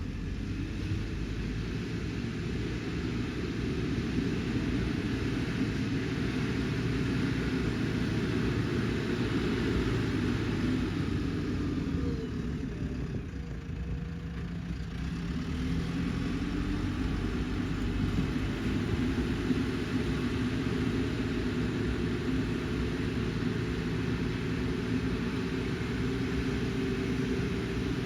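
A heavy diesel vehicle or machine engine running steadily, dipping in pitch and level around the middle and picking up again.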